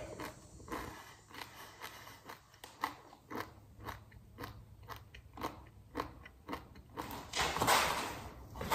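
A person chewing the crunchy black Paqui One Chip Challenge tortilla chip with the mouth closed, about three crunches a second. Near the end the chewing gives way to a louder, longer rush of noise.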